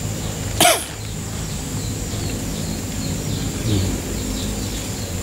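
A single quick swish about half a second in, falling in pitch: a fishing rod and line whipped through the air on a cast. Under it run a steady low hum and faint, scattered high chirps.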